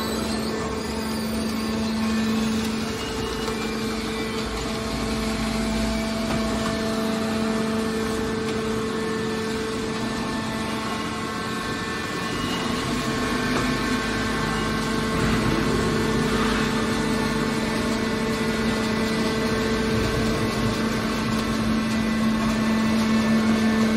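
Scrap steel baler running: a steady machine hum with a few held tones, even throughout.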